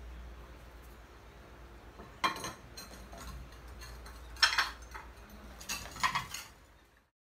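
Glazed, kiln-fired ceramic plates clinking against each other as they are stacked: one clink about two seconds in, the loudest about halfway, and a few more near the end, then the sound cuts off.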